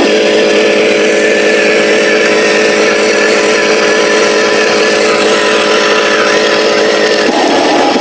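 Huina 1501 RC Scania truck's motor and engine sound, a steady pulsing hum that changes to a rougher, noisier running sound about seven seconds in.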